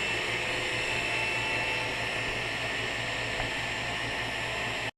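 Taig CNC mill running a parallel finishing pass: a steady motor whir and hiss with a faint high whine, cutting off suddenly near the end.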